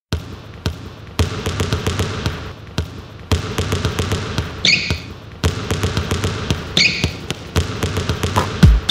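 Heelys' heel wheels rolling over a hard, smooth shop floor: a steady rolling rumble with a hum and irregular clicks and rattles, and two brief high squeaks. A deep, falling bass beat comes in near the end.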